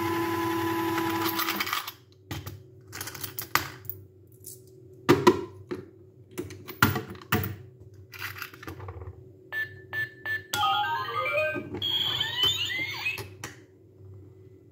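Toy electronic ATM money box: its small motor whirs steadily for about two seconds as it draws in a banknote, followed by scattered clicks and knocks. About ten seconds in come a few short beeps and then a short electronic tune of rising notes as its door unlocks.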